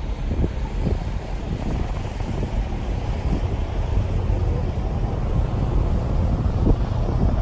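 Wind buffeting the camera's microphone: a loud, low rushing noise with irregular gusts.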